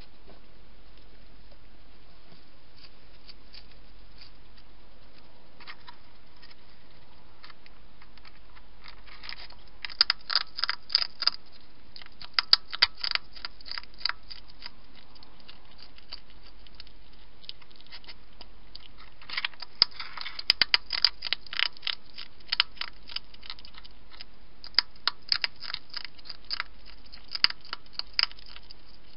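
European hedgehog crunching dry food from a dish: runs of rapid crisp crunches and clicks about ten seconds in and again from about twenty seconds in, with a few scattered crunches between.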